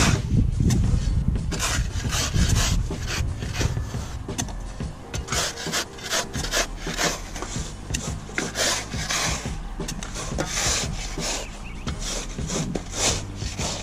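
Steel shovels scraping and digging into loose sandy soil, with many irregular scrapes as two people cut a footer trench by hand. A low steady hum runs underneath.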